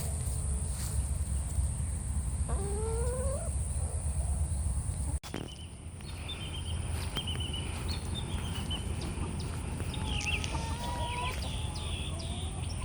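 Backyard hens clucking and calling now and then, over a steady low rumble.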